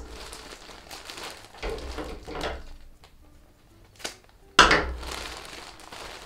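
Rustling and crinkling of packaging as a plastic bag of small cotton yarn skeins is handled and pulled out of a box, with a sharp click and then a loud crunch of the packaging about four and a half seconds in.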